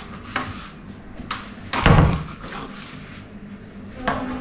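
A few light knocks and one loud thump about two seconds in.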